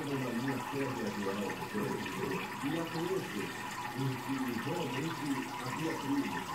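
Aquarium water splashing and trickling at the surface, with muffled voices in the background.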